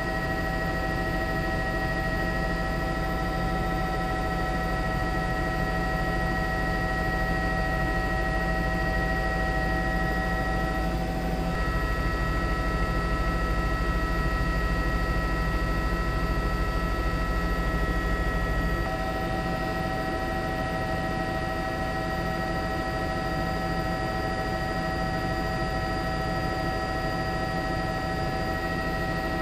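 Steady drone of a helicopter engine with a constant whine and a low rumble, dropping slightly in level about two-thirds of the way in.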